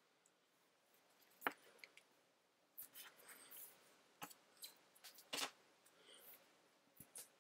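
Faint handling of paper and sticky tape on a wooden table: scattered crackles and light taps as a tape strip is applied and the paper is pressed flat, the sharpest about a second and a half in and again past five seconds.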